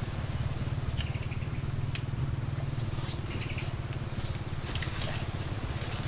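Rustling and crackling of leaves and undergrowth, sparse at first and growing dense near the end, over a steady low hum.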